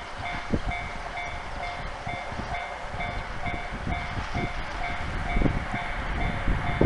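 Japanese railway level crossing's electronic warning bell ringing in an even rhythm of about two strokes a second, while a train passes with a low rumble and irregular clattering thuds from the wheels.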